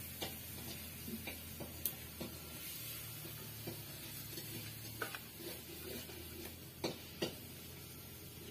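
Steel spoon clinking and scraping against a kadai and a stainless steel plate while pieces of fish curry are served out: a scatter of light clicks over a faint steady hiss.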